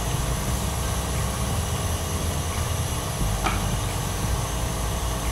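Wooden rolling pin rolling paratha dough back and forth on a wooden board, heard as a steady low rumble. A brief faint squeak comes a little past the middle.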